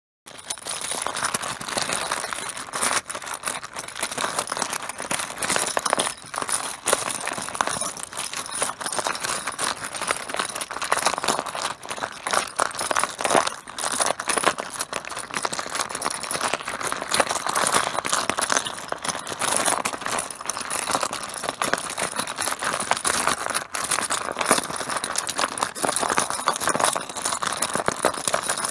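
Mahjong tiles clattering against one another in a dense, continuous stream of clicks and knocks.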